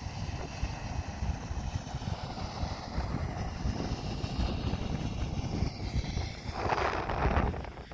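Steam jetting from a fumarole vent with a rushing hiss, under heavy wind buffeting on the microphone. The rush swells to its loudest for about a second near the end.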